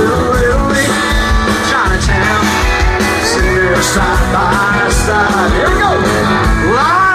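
Live country-rock band playing loudly, an electric guitar lead with notes bending up and down over drums, bass and cymbals, heard through a phone's microphone from the crowd.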